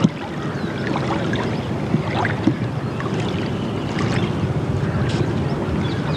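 Riverside ambience: a steady rush of river water with wind buffeting the microphone, and scattered short high chirps over it.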